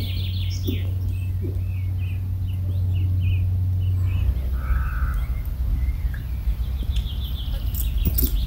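Birds chirping and singing in short phrases over a steady low rumble of wind on the microphone.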